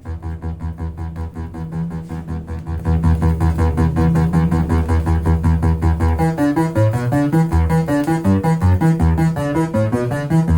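Instrumental intro of a 1983 synth-pop song: a fast, evenly repeating synthesizer pattern over a pulsing bass. It steps up in loudness about three seconds in, and a keyboard melody line enters about six seconds in.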